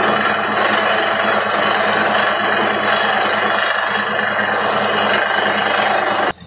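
Truck-mounted borewell drilling rig running steadily, its engine and air drilling the bore with a dense, even noise over a low hum as rock dust blows out of the casing. It cuts off suddenly near the end.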